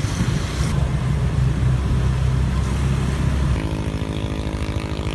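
Motor scooter engines running, with the rushing noise of riding along a road. A little past halfway the sound changes abruptly to a steadier engine hum with a clear pitch.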